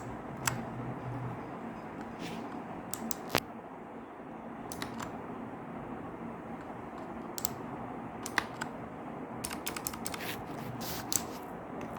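Razer Huntsman Mini's clicky purple optical key switches being pressed one at a time, single sharp clicks a second or so apart, then a quicker run of several presses near the end.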